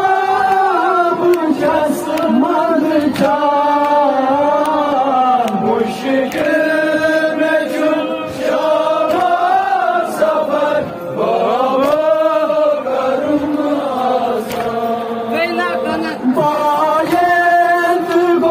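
Noha, a Shia lament, chanted by male reciters over microphones and a horn loudspeaker, with other voices joining the refrain. Sharp hand slaps of chest-beating (matam) come at a steady beat under the chant.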